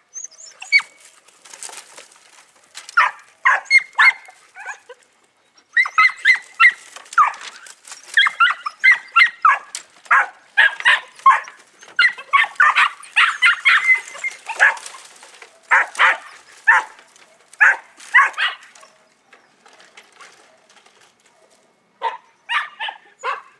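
Podenco puppy giving high-pitched, yapping barks in quick runs while working a brush pile, with a short lull near the end before the barking starts again.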